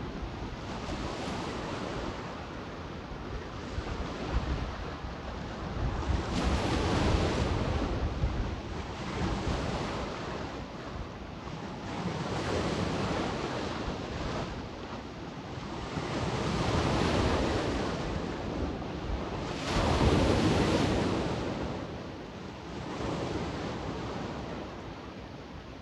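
Sea waves washing onto the shore, the surf swelling and easing every few seconds, with wind buffeting the microphone as a low rumble.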